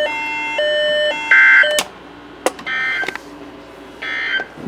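Emergency Alert System end of message: a few steady electronic beeps alternating between a lower and a higher pitch, then three short, harsh bursts of digital data tones about a second and a half apart, the end-of-message code that closes the alert.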